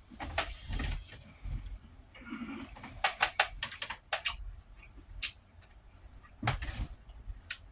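Close-up eating sounds: chewing with irregular wet clicks and smacks of the mouth, spaced unevenly, with a few louder smacks and a short breathy smear near the end.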